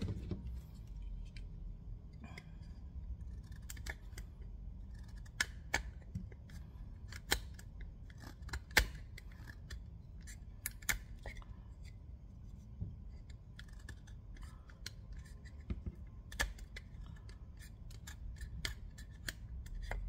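A dozen or so sharp, irregularly spaced clicks and snaps from a Leatherman multitool being worked by hand, the loudest about nine seconds in.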